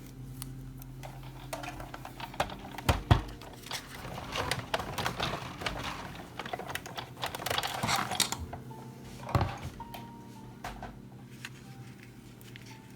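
Crafting handling sounds at a work table: irregular clicks, taps and rustles of washi tape, a die cut and cardstock being set in place, with two sharper knocks about three and nine seconds in.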